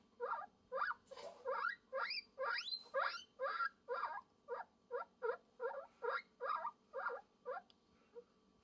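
Guinea pig squeaking in a steady run of short rising calls, about two or three a second. A few of them in the middle sweep up higher, like whistles. The calls stop about a second before the end.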